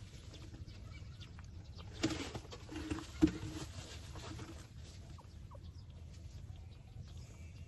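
Nursing puppies giving short squeaks and whimpers, with a burst of scuffling about two seconds in and a sharp click just after three seconds.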